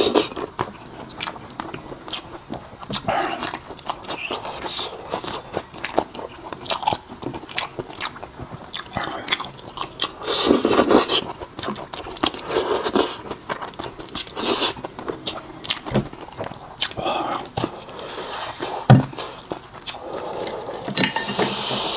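Close-miked, wet chewing and lip-smacking of a man eating pig's head meat, with many small mouth clicks and a few louder stretches of eating noise.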